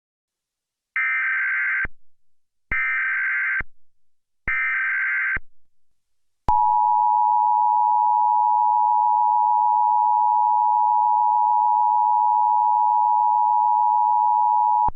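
Emergency Alert System SAME header: three bursts of buzzing data tones, about a second each, then a steady attention tone that sounds for about eight seconds and cuts off sharply near the end.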